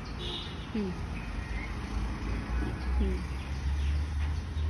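Birds chirping and giving short falling calls, over a low rumble that grows stronger about halfway through.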